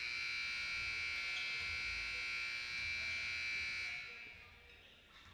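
Basketball scoreboard buzzer sounding one steady buzzing tone for about four seconds, starting abruptly and dying away near the end.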